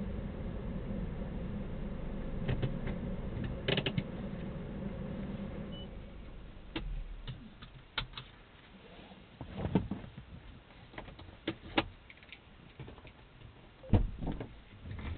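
Inside a car cabin as the car stops: a steady low running hum fades out about six seconds in, then scattered clicks and knocks of handling inside the cabin, the loudest near the end.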